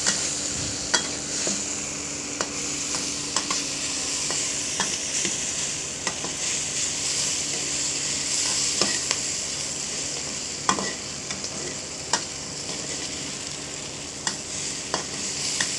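Ground chili, shallot and garlic spice paste sizzling in hot oil in a wok as it is sautéed until fragrant, stirred with a metal spatula. The steady sizzle is broken by scattered sharp clicks and scrapes of the spatula against the pan.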